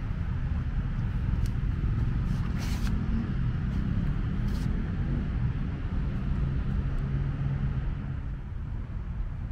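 Steady low rumble of distant city road traffic, with a couple of brief sharp ticks about three and four and a half seconds in.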